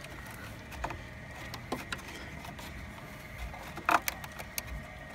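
A few scattered light clicks and taps of hands handling a truck's plastic headlight housing, the sharpest about four seconds in, over a faint steady background.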